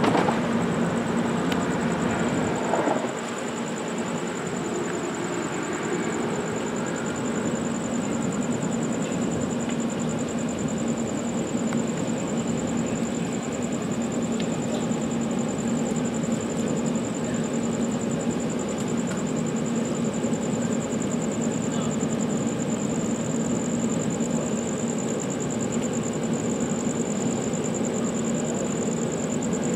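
Amtrak GE P42DC diesel locomotive standing at the platform with its engine running: a steady low drone with a thin high whine over it. The sound is a little louder for the first three seconds, then holds even.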